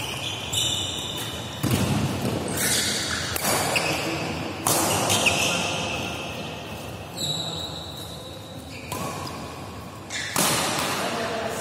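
Doubles badminton rally: sharp racket strikes on the shuttlecock, about seven at uneven gaps of one to two and a half seconds, each with the echo of a large hall. Short high squeaks of court shoes come between the strikes.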